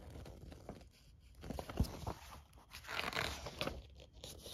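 Paper pages of a board-game rulebook being turned and handled: rustling with small crackles and clicks, and a louder page swish about three seconds in.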